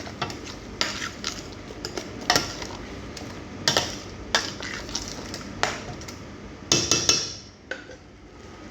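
A spoon stirring a pot of tomato, onion and spices, knocking and scraping against the pot in irregular clinks, with a cluster of louder clanks about seven seconds in.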